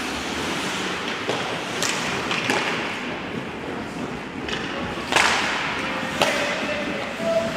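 Ice hockey play in an echoing rink: skates hissing and scraping on the ice, broken by about six sharp clacks and knocks of sticks, puck and boards, the loudest a little past the middle.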